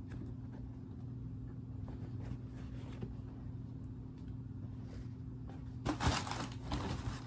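Sneakers being handled: faint rustles and clicks over a steady low hum, then about six seconds in a louder burst of rustling and knocks as a shoe is tossed down toward its box.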